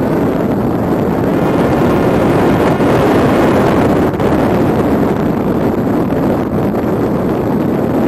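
Steady rush of wind and propeller noise on the onboard camera of a Parrot Disco fixed-wing drone in flight, swelling slightly about three seconds in as the airspeed climbs.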